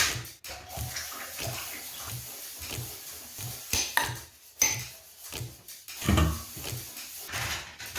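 Dishes and pots being washed by hand in water: sharp clinks and clatters over a regular splashing scrub about twice a second.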